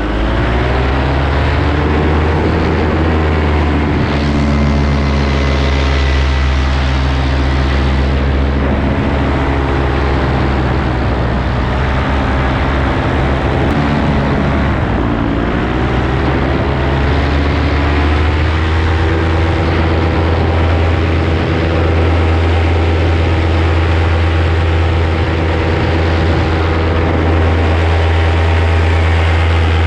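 Paramotor engine and propeller running continuously in flight: a steady low drone with higher tones that dip in pitch and rise again at the start and about halfway through.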